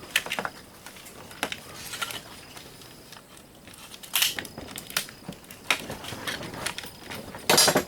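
Small plastic and metal pieces from a taken-apart surge protector being handled and set down: scattered clicks and knocks, with a louder clatter about four seconds in and another near the end.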